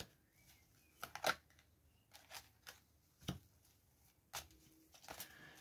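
A deck of divination cards being handled: a card laid down on a cloth-covered table, then the deck shuffled between the hands, giving faint scattered snaps and clicks, the sharpest about a second in and again a little after three seconds.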